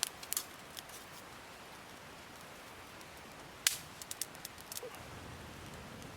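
Campfire crackling: scattered sharp pops from burning wood over a faint steady hiss, the loudest pop a little past the middle.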